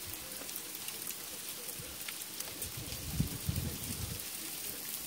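Steady thunderstorm rain falling, with many sharp individual drop hits, and a burst of low rumbling about three seconds in.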